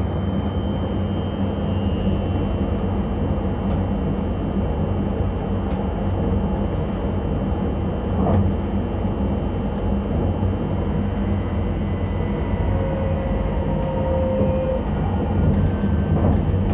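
ČD class 640 RegioPanter electric multiple unit running along the line, heard from the driver's cab: a steady rumble of the wheels on the rails with a low electrical hum. A faint short whine comes in briefly about two-thirds of the way through.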